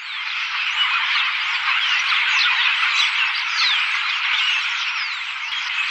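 A flock of starlings chattering incessantly, a dense mass of squeaks and clicks with many short falling whistles over it: the flock's social chatter of togetherness.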